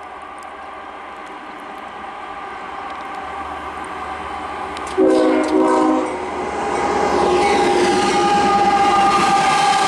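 GE diesel locomotives at the head of a loaded CSX coal train approaching and growing steadily louder. About five seconds in the locomotive air horn sounds two short blasts. Then the lead units pass close and the engine sound is at its loudest.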